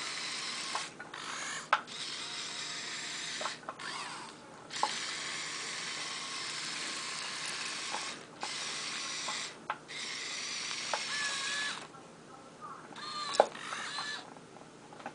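Kyosho Komatsu remote-control excavator's electric motors and gearboxes whirring in stretches of one to three seconds with short pauses, as the boom and arm are worked, with a few sharp clicks; quieter near the end.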